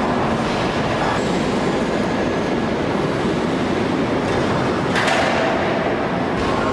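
Steady, loud mechanical din of a heavy forging press at work on a hot ingot, with a sudden sharp burst about five seconds in.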